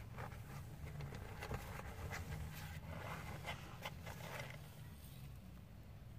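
Kittens' paws and claws scrabbling on newspaper in a cardboard box: a run of light scratches and rustles, busiest about three to four seconds in and dying away about five seconds in, over a low steady hum.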